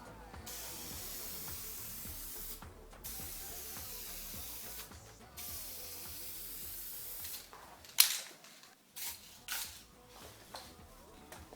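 Aerosol can of acrylic clear coat spraying onto a headlight lens in three passes of about two seconds each, a steady hiss, followed by a sharp click and a few short quieter noises.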